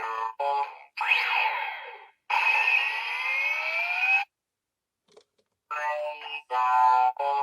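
A run of electronic sound effects in short, abruptly cut pieces: buzzy pitched tones, then a longer stretch of rising sweeping tones. They stop for about a second and a half midway, then the pitched tones come back.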